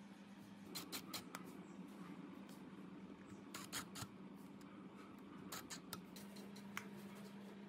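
Faint clicks and taps of a screwdriver and a cover plate being fitted and screwed onto an electric vibrator motor's terminal box, in a few short clusters, over a steady low hum.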